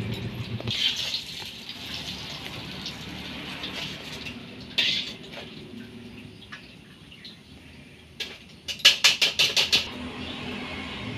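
Hot oil sizzling in a wok as stuffed tofu fries and is lifted out with a ladle. There is a single sharp knock about halfway through, and near the end a quick run of about eight sharp clicks, the loudest sound.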